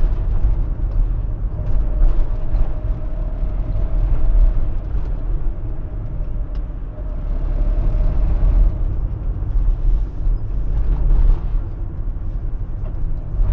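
Fiat Fiorino van driving, its engine and road noise heard from inside the cab as a steady low rumble.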